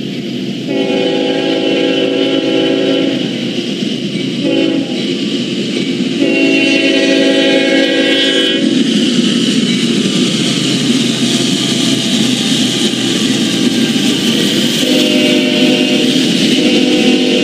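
A CSX diesel locomotive's Nathan K5HLL five-chime horn blowing a long blast, a short one and another long one, the closing part of a grade-crossing signal as the train comes past. From about eight seconds in, the intermodal cars roll by with a steady rumble and wheel clatter, and the horn sounds twice more, fainter, near the end.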